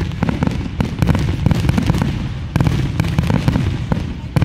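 Aerial fireworks shells bursting in quick succession: overlapping deep booms with a dense crackle of sharp pops, and a fresh loud burst about a second in, another past two seconds, and one near the end.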